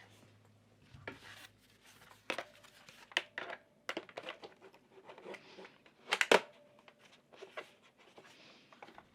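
Handling sounds of a keyboard palm rest being fitted to the keyboard's front edge: scattered plastic clicks and knocks with soft rubbing in between, the sharpest clicks about six seconds in.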